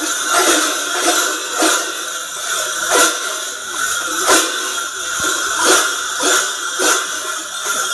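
Clusters of cowbells strapped to the backs of Sardinian carnival dancers (Mamutzones), clanging together as the dancers hop in step. The bells ring on without a break, and a heavy clash sounds about once every two-thirds of a second.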